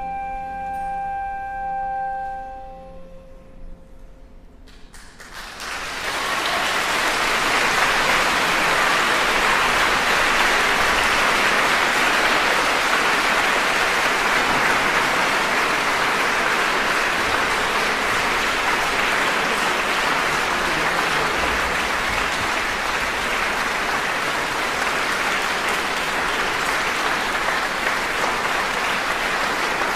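The closing held note of a chamber trio of flute, viola and harp dies away within the first three seconds. After a brief hush, a concert audience breaks into applause about five seconds in and keeps clapping steadily.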